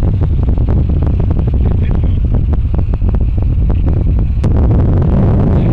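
Moving car, heard through an open window: a steady low road-and-wind rumble with crackling wind buffeting on the microphone. About four and a half seconds in it turns abruptly into a louder, fuller rush.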